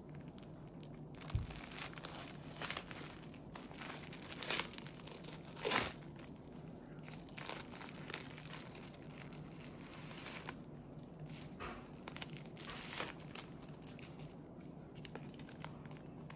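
Plastic film wrapper of a packaged onigiri (rice ball) crinkling and tearing as it is pulled off the nori-wrapped rice. The crackles are irregular, with a few louder rips in the first six seconds.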